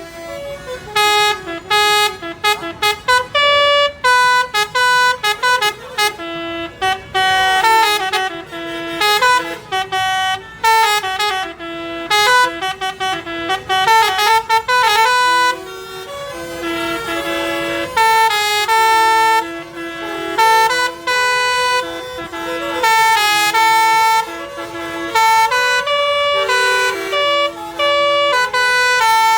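Basuri musical bus horn playing a tune: a quick run of short horn notes stepping up and down in pitch, moving to longer held notes about halfway through.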